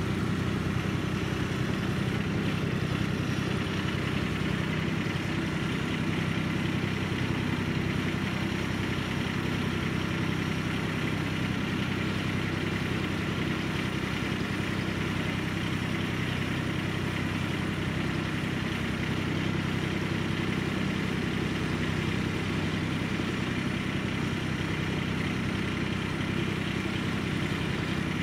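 Riding garden tractor engine running steadily as the tractor drives along slowly.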